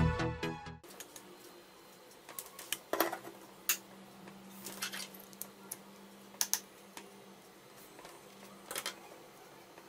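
Background electronic music cuts off under a second in. Then come faint scattered clicks and taps of a small circuit board and a DC barrel power plug being handled on a wooden table, over a faint steady hum.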